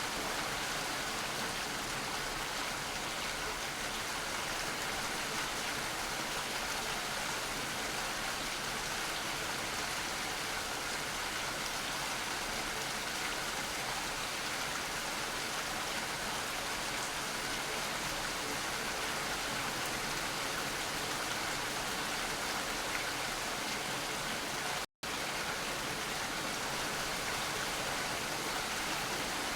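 Steady rainfall, an even hiss of drops. It cuts out completely for a split second near the end, then carries on unchanged.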